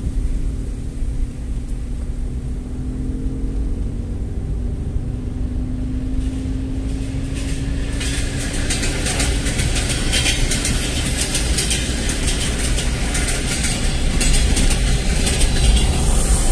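Steady road and engine rumble heard from inside a moving car, with a faint rising whine in the first half. From about eight seconds in, a dense crackling hiss joins it and stays.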